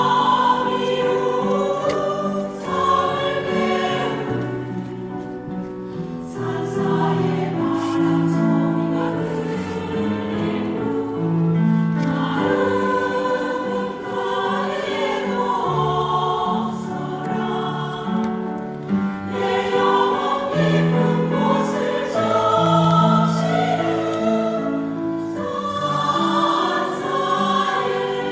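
Mixed choir singing a Korean Buddhist hymn in harmony, with long held notes moving from chord to chord.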